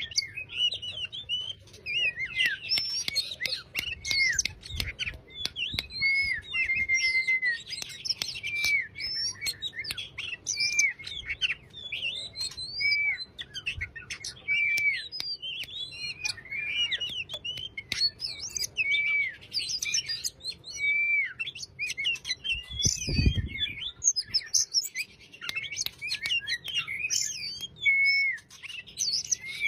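Oriental magpie-robin (kacer) singing continuously in a relaxed, chattering song of varied short whistles, slurs and trills, phrase after phrase with barely a pause. A brief low thump comes about two-thirds of the way through.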